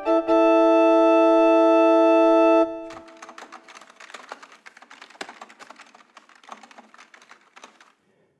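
A held organ chord that stops about two and a half seconds in, followed by faint, irregular clicking of typing on a computer keyboard.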